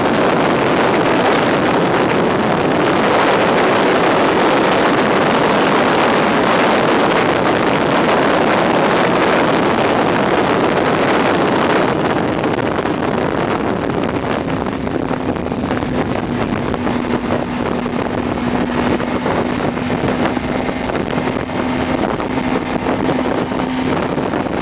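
Wind rushing over the microphone together with the engine of a Suzuki GSX-R sportbike at highway speed. About halfway through the rush eases and a steady engine hum comes through.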